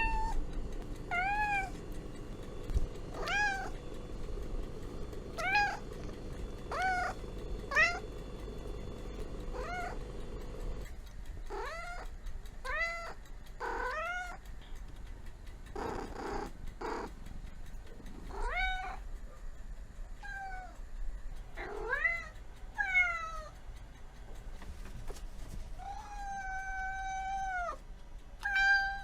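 Domestic cat meowing over and over, short calls that rise and fall in pitch every second or so, with one long drawn-out meow near the end.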